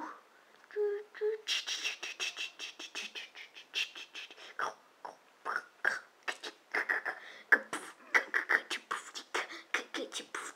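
Rapid, irregular clicks and pops, several a second, from a cartoon soundtrack heard through a TV speaker.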